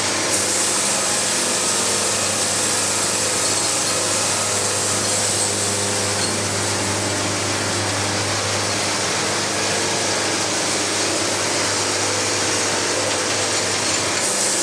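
Band sawmill cutting through a maple cant: a steady engine hum under the dense hiss of the band in the wood. The cutting hiss starts just after the beginning and drops away shortly before the end.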